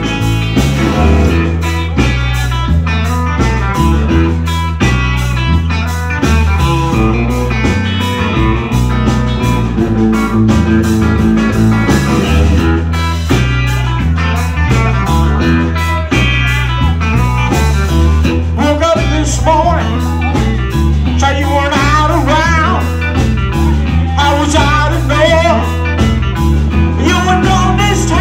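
Live blues band playing an instrumental stretch: electric guitar over a steady bass line and drums. The guitar bends notes up and down in the second half.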